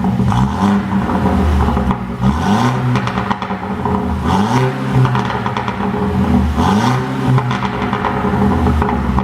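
Mercedes-Benz SLC200's turbocharged four-cylinder engine revved again and again. As the revs drop after each blip, the exhaust pops and crackles, the effect of an ECU tune made to produce overrun pops.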